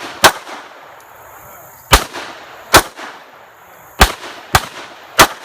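Handgun shots at a shooting range: six sharp shots at uneven intervals, each with a short ring-out.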